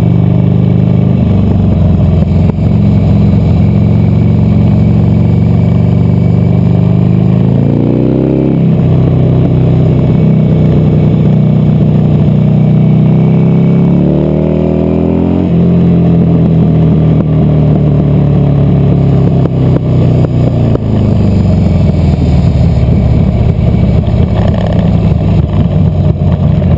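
Buell XB12Scg's 1203 cc air-cooled V-twin running hard under load, close to the mic. The revs climb and drop back sharply twice, a little past a quarter and a little past halfway through, at gear changes, then fall away over the last few seconds as the bike slows.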